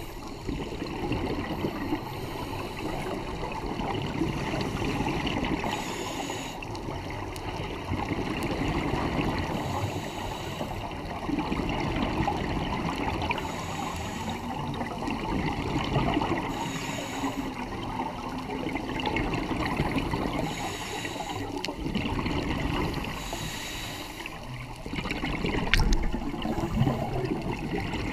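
Scuba regulator breathing recorded underwater: continuous bubbling and gurgling of exhaled air, with a hissing breath repeating every two to three seconds. A sharp knock near the end.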